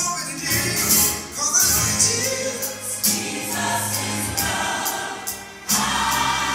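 Gospel music: a choir singing over a bass line and percussion, with a brief break about five and a half seconds in before the music comes back.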